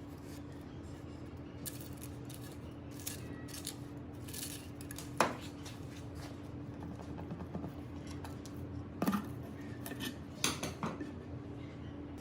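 Metal parts and hand tools clinking and knocking against one another in scattered strokes, the sharpest about five seconds in and again around nine and ten and a half seconds, over a steady low hum.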